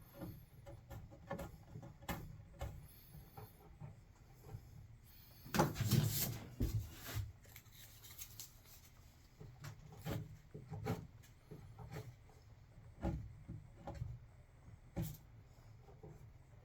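Wood being handled: scattered light knocks and rubbing, with a louder scraping rub about six seconds in.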